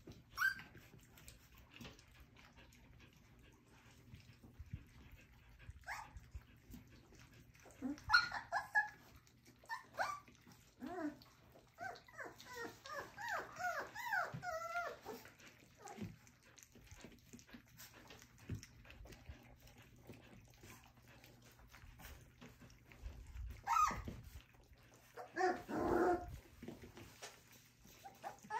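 Nearly four-week-old puppies whimpering and squeaking in short scattered calls, busiest in a run of quick high squeaks about halfway through.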